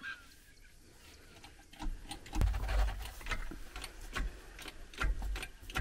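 Hydraulic bottle jack being pumped to lift the caravan wheel. Starting about two seconds in, it gives irregular clicks and knocks with dull low thumps among them.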